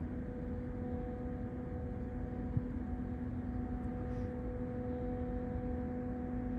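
Ship's machinery droning steadily: a low rumble under an even, unchanging hum.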